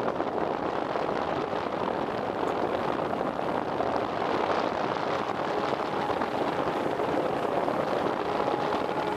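Steady rushing noise aboard a fishing boat at sea, water and wind on the microphone, with no distinct engine tone or knocks.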